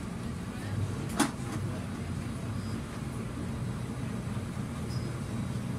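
Steady low rumble of a bus heard from inside the passenger cabin, with one sharp knock about a second in.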